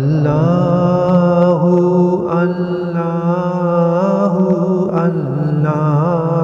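Background devotional vocal chant: a single voice sings long, gliding held notes over a steady low drone.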